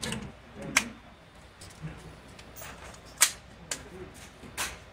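A few sharp gunshot reports echoing in an indoor shooting range, the loudest about three seconds in.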